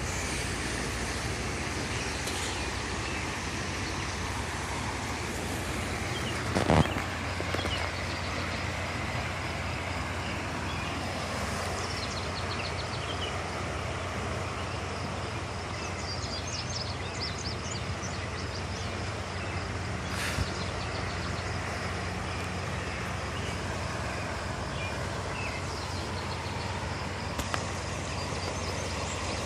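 Steady outdoor background noise with a low hum, a sharp knock about seven seconds in, and faint high chirps near the middle.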